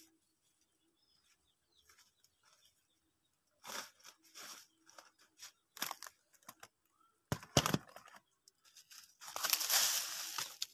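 Dry leaf litter and twigs being crushed and pressed by hand into a raised bed, crackling and rustling in irregular handfuls. The longest and loudest burst comes near the end.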